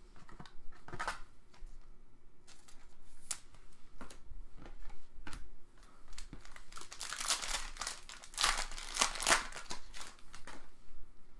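Plastic wrapping on sports card packs crinkling and tearing as the packs are opened by hand, in irregular crackles that are densest and loudest from about seven to nine and a half seconds in.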